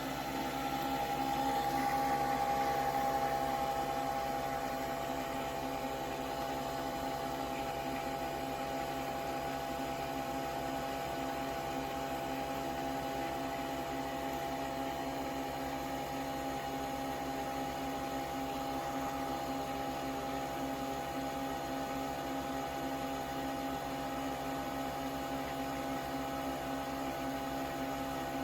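Nespresso Vertuo Next coffee machine brewing: a steady motor whir with a few held tones as the capsule spins.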